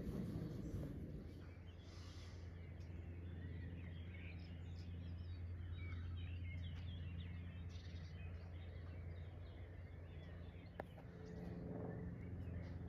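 Small birds chirping and twittering over a steady low hum, with a single sharp click near the end.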